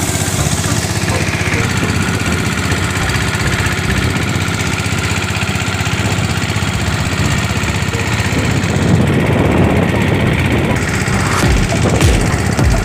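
Small river boat's engine running steadily, heard from on board.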